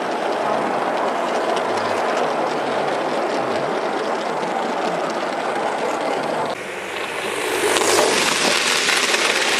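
Gauge 1 model train coaches rolling past on garden track with a steady rattling run of wheels on rail. About six and a half seconds in, the sound changes, and then a model locomotive hauling freight wagons passes close with a louder hissing rush.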